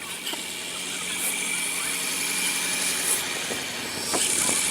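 Car on a snowy, icy road: steady engine and tyre noise with a high hiss and a thin whine, getting a little louder near the end.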